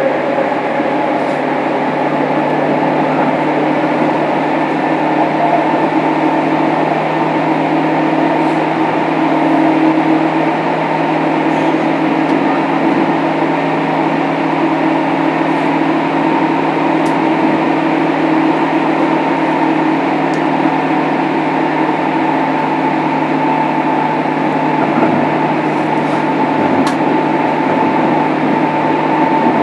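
Inside a JR Kyushu 103 series electric commuter car, motor car MoHa 102-1514: a steady drone of the train's equipment and running noise, with several humming tones that hold one pitch and never rise or fall, and a couple of faint ticks.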